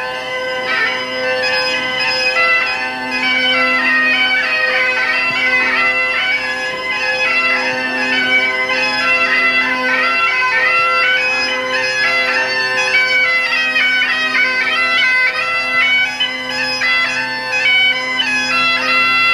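Highland bagpipes playing a tune over their steady drones.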